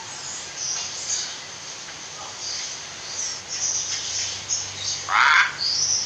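Common hill myna making short high chirps and whistles, with a louder harsh call about five seconds in.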